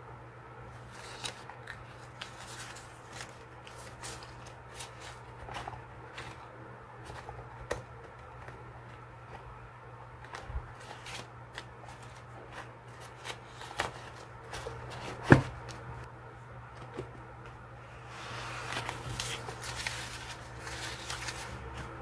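Stacks of paper memo cards and loose papers being handled and leafed through: light rustles and flicks, with one sharp knock about two-thirds of the way in and a longer spell of rustling near the end.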